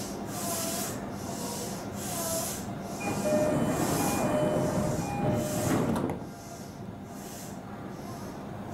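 JR E233-series commuter train's door-closing chime, short two-note tones repeating about once a second, while the doors slide shut. The chime and door noise stop suddenly about six seconds in, leaving a quieter steady hum from the stopped train.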